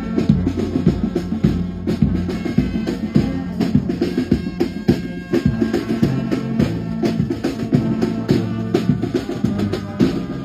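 Brass band playing: held low brass chords that shift every second or so, over a busy bass drum and snare drum beat.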